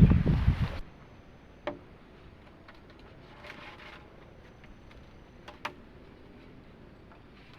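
Wind buffeting the microphone cuts off abruptly about a second in. It leaves a quiet background with a few sharp clicks or knocks, one near the start and two close together near the end.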